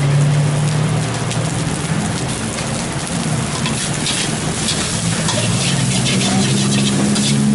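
Steel spatula scraping and clanking against a wok as fried rice is stir-fried over high heat, with quick strokes from about halfway through. Behind it is a steady rushing sizzle and a low hum that rises in pitch near the end.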